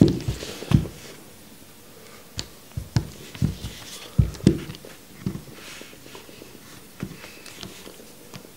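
Handling noises from tucking cotton wicks into the coil of a box-mod vape's rebuildable atomizer with tweezers: scattered soft knocks and clicks of the mod and tweezers, with light rustling of cotton. The knocks cluster in the first five seconds, with one more about seven seconds in.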